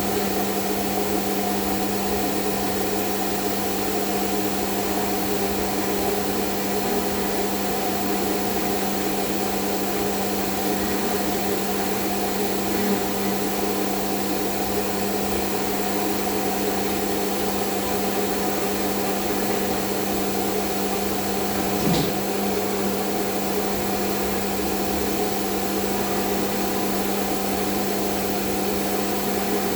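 CNC machine running steadily, a constant motor hum with several steady tones over a noisy whir, with one short knock about 22 seconds in.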